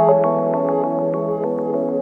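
Soft ambient background music: sustained tones with a run of light, quick struck notes over them.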